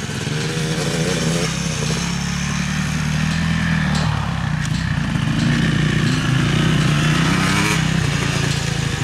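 Dirt bike engines revving up and easing off over and over as the bikes ride the track jumps, growing a little louder in the second half. The bikes are a Yamaha YZ250 two-stroke and a Suzuki RM-Z450 four-stroke.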